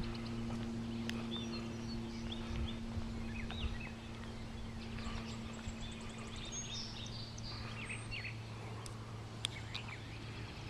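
Birds chirping, many short rising and falling calls, over a steady low hum and outdoor background noise.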